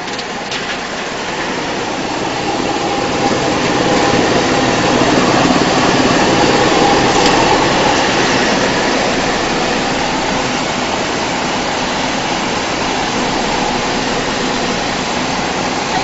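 Electric-driven GX218 drum wood chipper running under load, chipping wood, with chips pouring from its discharge. A dense, steady mechanical noise that swells over the first few seconds, then holds.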